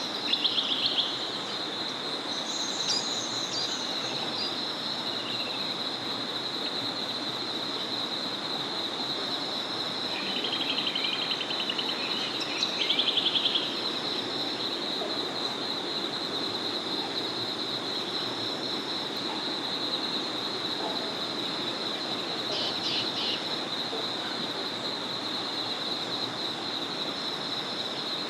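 A small forest river flowing steadily under a continuous high-pitched drone from an evening chorus, with songbirds calling over it in short trills: one right at the start, a higher call about three seconds in, a longer pair of trills around ten to thirteen seconds in, and a few quick notes near twenty-three seconds.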